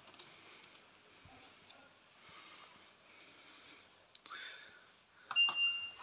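Quiet, with faint hiss. Near the end, just after a couple of clicks, an LG washing machine's control panel gives one steady high beep as the spin program is set.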